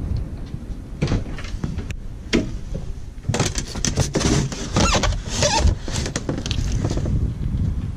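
Overhead deck hatches on a sailboat being unlatched and pushed open. Latch handles click a few times, then there is a busy stretch of clattering and scraping from the hatch lids and frames in the middle.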